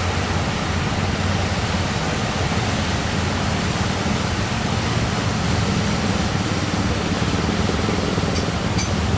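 Steady rushing noise of heavy surf and wind, with a low rumble underneath.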